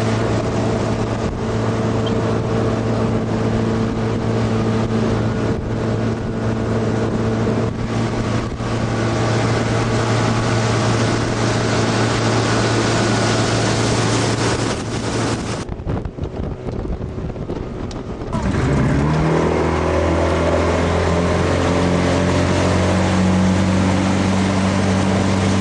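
Motorboat engine running steadily at speed under a hiss of wind and water. About two-thirds of the way through the sound drops for a couple of seconds, then the engine note climbs in pitch as the boat picks up speed again and settles into a steady run.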